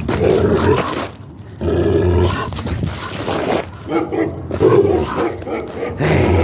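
Dog vocalizing in play, in five loud bursts of about a second each with short breaks between them.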